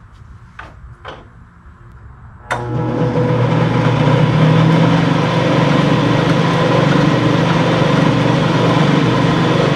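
Craftsman/Atlas 12-inch lathe switched on about two and a half seconds in, after two faint clicks. Its motor and spindle then run with a steady hum, the spindle's Timken tapered roller bearings freshly preloaded and lubed and running smoothly.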